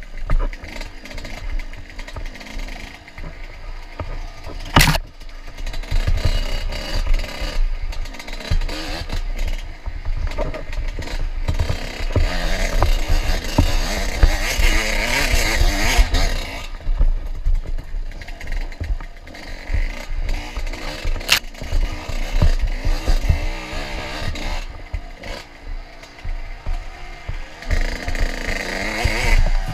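Dirt bike engine revving up and down as the bike climbs and weaves along rough singletrack, with a heavy rumble on the rider-mounted microphone. Two sharp knocks cut through, about five seconds in and again past twenty seconds.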